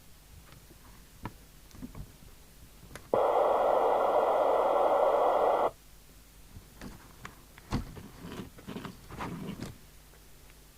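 LCL Communicators NI440DX FM CB radio's speaker giving a loud burst of receiver hiss, about two and a half seconds long, that switches on and cuts off suddenly, as when the squelch opens and closes. Afterwards come a string of small clicks and knocks.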